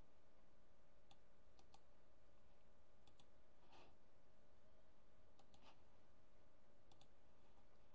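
A handful of faint, scattered clicks from a laptop's keys and mouse buttons as text is copied and windows are switched, over a faint steady electrical hum.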